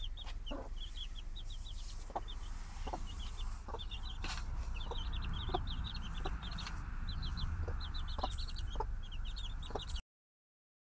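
Domestic chicks peeping nonstop, a rapid string of short high falling cheeps, with occasional short clucks from the mother hen. The sound cuts off near the end.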